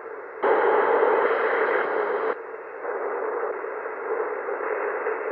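Receiver static hiss from an Icom IC-M802 HF transceiver's speaker as it is tuned across from the 10-metre band to the 15-metre band. A louder, brighter hiss lasts about two seconds near the start, then settles to steadier band noise, which the operator puts down to interference from local computers and solar-panel inverters.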